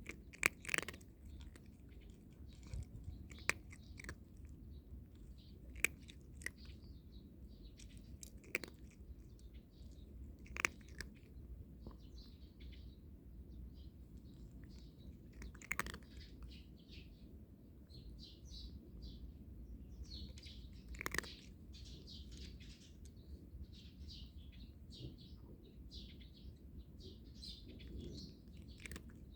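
Cat crunching dry kibble, with a sharp crunch every few seconds. Small birds chirp throughout, more busily in the second half.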